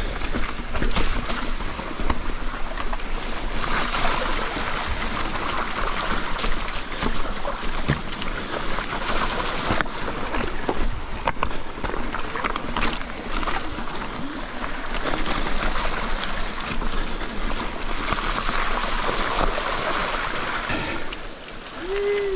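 Mountain bike rolling fast down a wet dirt trail: a steady rushing of tyres and wind, with scattered clicks and knocks from the bike over the bumps.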